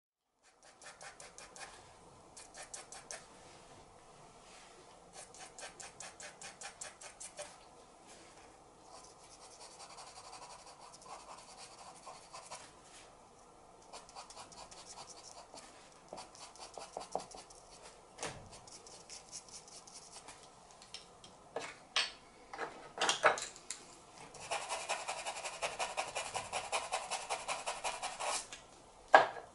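Charcoal pencil scratching across paper in quick, short hatching strokes that come in bursts. A few louder strokes land a little past the middle, and near the end there is a longer, denser stretch of steady scratching.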